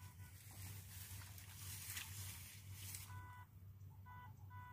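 Faint electric-fishing rig working through the water: a steady low hum, then a rapid electronic beeping that starts about three seconds in. A soft rustling hiss fills the first few seconds.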